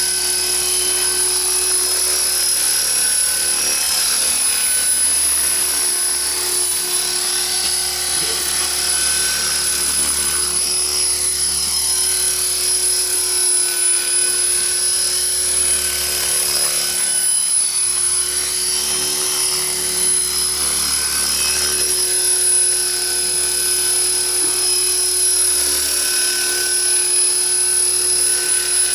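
Radio-controlled model helicopter's motor and rotor running steadily as it hovers and climbs, a continuous high whine over a hiss.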